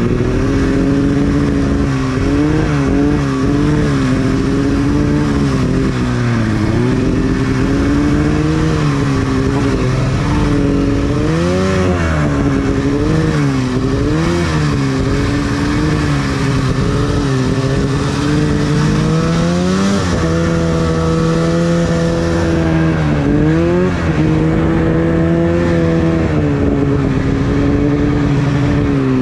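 Arctic Cat two-stroke snowmobile engine running on the move under changing throttle, its pitch rising and falling over and over.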